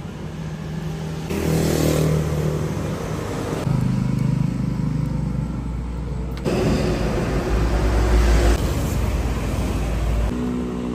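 Road traffic: motor vehicle engines running and passing, a steady low rumble that shifts suddenly about six and a half seconds in and again near the end.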